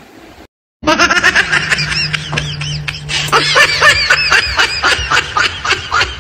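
A small child's voice in a rapid run of short, high, pitched cries, starting abruptly about a second in.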